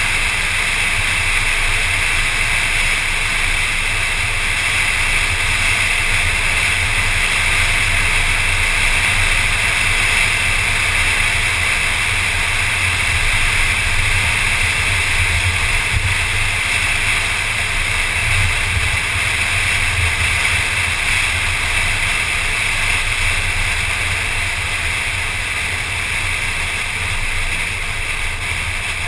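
Car driving at road speed, heard from its hood: a steady rush of wind and tyre noise with a low rumble underneath.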